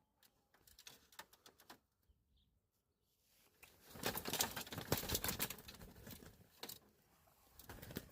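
Poultry scuffling and flapping their wings, a dense rustle that builds about three and a half seconds in and dies down after about three seconds, with scattered light clicks before it.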